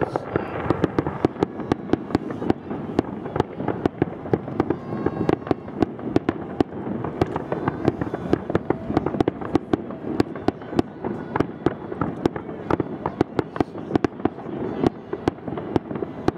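Fireworks display: a dense, continuous run of sharp bangs and crackling pops, several a second, over a steady din.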